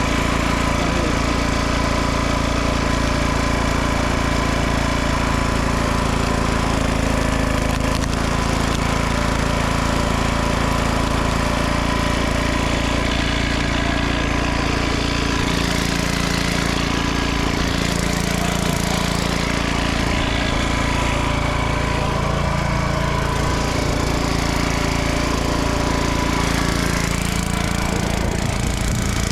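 Small petrol engine running steadily for a long stretch, its pitch shifting a little partway through.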